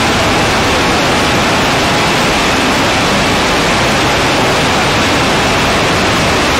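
Loud, steady static-like hiss, even from low to high pitches and with no changes in it.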